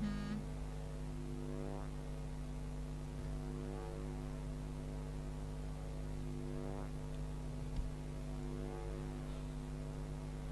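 A low, steady hum made of several held tones, some of them fading in and out every few seconds, with a faint high whine above it. There is a single short click about eight seconds in.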